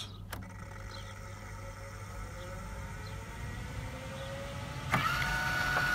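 Fantastic Fan roof vent's lid motor clicking on and whirring steadily as it automatically closes the vent, with another click about five seconds in and a higher steady whine after it. The rain sensor has triggered the close on a dry day, which the owner puts down to damp and sand fouling the sensor.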